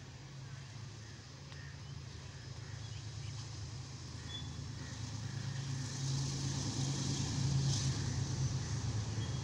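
Diesel locomotive of an approaching passenger train, its engine drone growing steadily louder as it nears.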